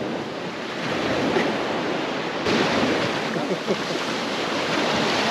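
Small surf waves washing onto a sandy beach and around the hull of a moored wooden boat, a steady hiss of water that turns brighter and slightly louder about halfway through.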